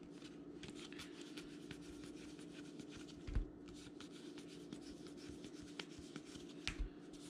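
Stack of 2019 Heritage Minor League baseball cards being flipped through by hand, the cards sliding and rubbing against each other with light ticks. A soft thump comes about three and a half seconds in and again near the end, over a faint steady hum.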